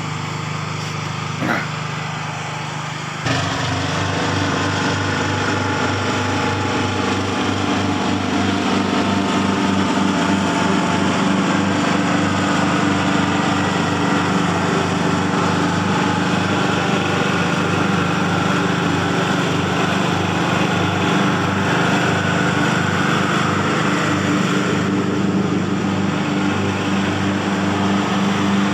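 Ride-on lawn mower engine running steadily while cutting grass, becoming suddenly louder about three seconds in.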